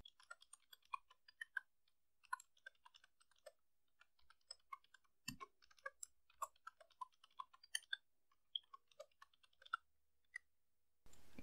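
Computer keyboard typing: faint, irregular key clicks with short pauses, one slightly heavier keystroke about halfway through.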